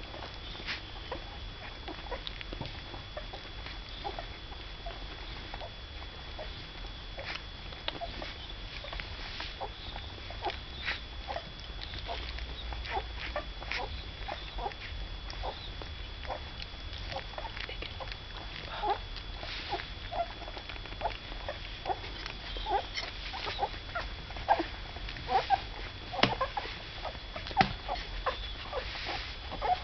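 A cocker spaniel puppy lapping and smacking at food in a saucer: a busy run of small wet clicks and smacks with short little squeaks, getting more frequent and louder in the second half.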